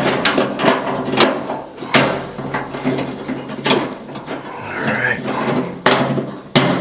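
Irregular plastic clicks and knocks as the broken plastic tailgate handle of a 2000 Ford Ranger is wiggled back and forth to free it from the tailgate's latch linkage.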